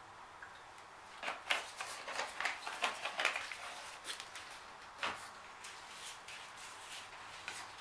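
Gloved hands handling plastic paint bottles on a table: a quick run of rustles and light clicks, then a single knock about five seconds in, with a few faint ticks near the end.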